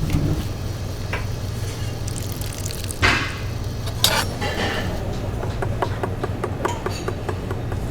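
Restaurant kitchen ambience built from sound effects: a steady low hum under scattered clatters of kitchen utensils and dishes. There is a knock about a second in, louder clatters around three and four seconds, then a quick run of light clicks near the end.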